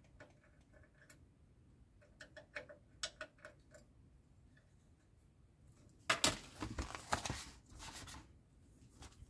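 Faint small clicks of a precision screwdriver turning a tiny screw out of a metal model car door frame. About six seconds in comes a louder stretch of rustling, scraping handling noise lasting about two seconds.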